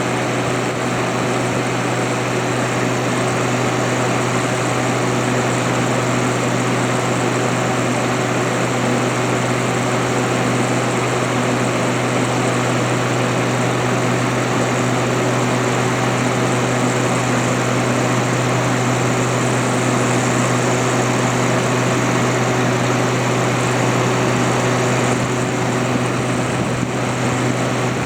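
Haier ESA410J-RGB window air conditioner running, its condenser fan pushing a strong, steady rush of air out the back of the unit over a steady low hum.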